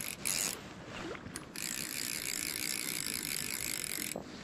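Fly reel's click-and-pawl drag ratcheting while a hooked fish is played: a couple of short buzzes near the start, then a steady, rapid clicking buzz lasting about two and a half seconds that cuts off near the end.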